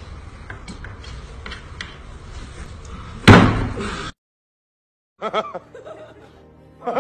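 A few faint clicks, then one loud slam about three seconds in that rings out briefly. After a gap of silence, a man's voice is heard briefly.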